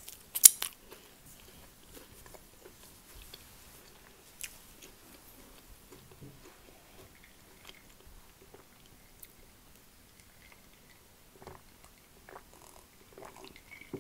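Close-miked chewing and mouth sounds of someone eating a roast dinner, with a few sharp wet smacks about half a second in, then quieter chewing.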